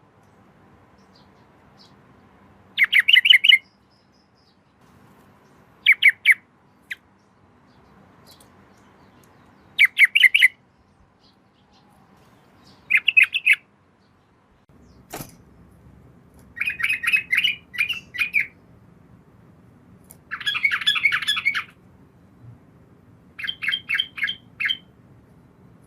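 Yellow-vented bulbul (trucukan) singing short, bubbly phrases every few seconds, about seven in all. A single sharp click comes a little past the middle.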